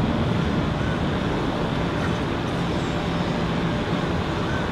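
Jet airliner's engines at climb power as it departs, a steady low rumble easing slightly as it climbs away.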